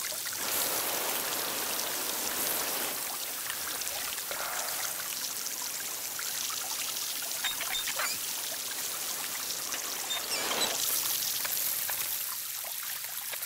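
Water spraying steadily from a leaking joint in a pipe, jets hissing and spattering.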